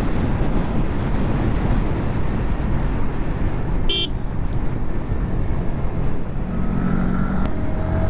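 Motorcycle riding at road speed: the engine running under heavy wind rush on the microphone, with a short horn toot about seven seconds in.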